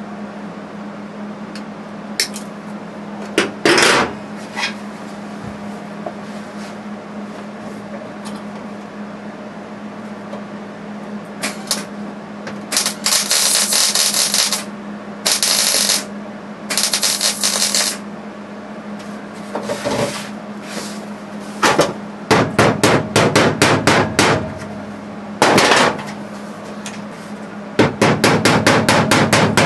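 Three short bursts of MIG welding, the hissing crackle of tack welds on the sheet-steel floor pan, then quick runs of hammer strikes on the sheet metal as the pan is knocked down into place. A steady low hum runs underneath.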